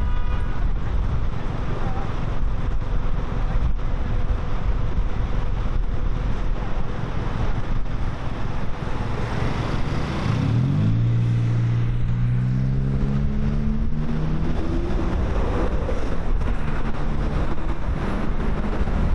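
Wind rumbling on the microphone throughout. About ten seconds in, an engine revs up, its pitch climbing for about five seconds before it fades.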